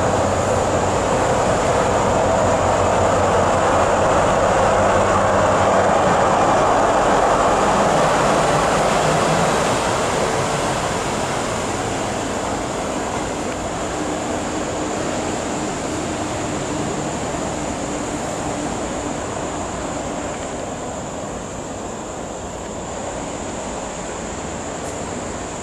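Siemens ER20 diesel-electric locomotive passing by, its engine and wheels on the rails loud for about the first nine seconds, then fading steadily as it draws away.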